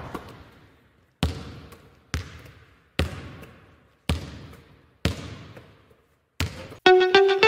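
A basketball bouncing on a hard court in a large echoing hall: six single bounces about a second apart, each ringing out in a long echo. Music with a guitar starts near the end.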